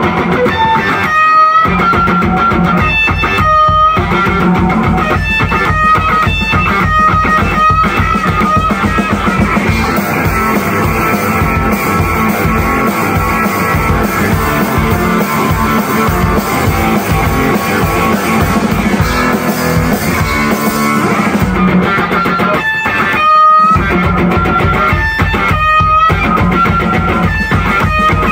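Rock music: an electric guitar strummed over a drum kit playing a steady driving beat, with a few brief stops where the whole band cuts out for a moment.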